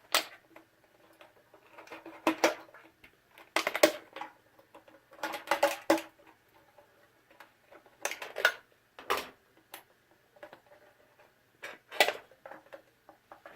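Aluminium drink can being cut open by hand, with short bursts of metal scraping and crunching, about seven strokes with pauses between them.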